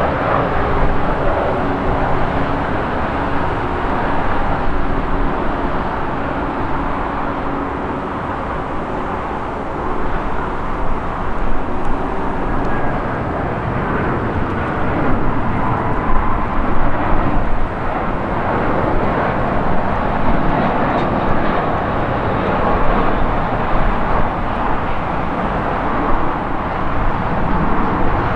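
Airbus A319 airliner jet engines on final approach to land, a steady engine noise with a hiss over it, growing somewhat louder after about ten seconds.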